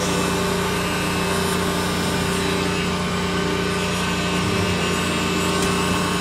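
Electric heat gun running steadily, its fan motor giving a constant hum over the rush of blown hot air used to heat-weld polyethylene foam.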